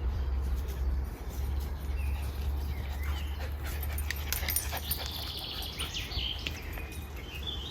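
A dog whining and whimpering in high, thin calls through the middle, over a steady low rumble and a few light clicks.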